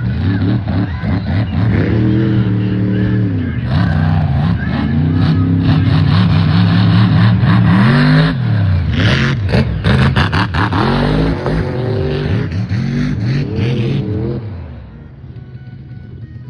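An off-road vehicle's engine revving hard again and again, its pitch climbing and falling, with a loud rushing noise over it for most of the middle. It eases off and quietens near the end.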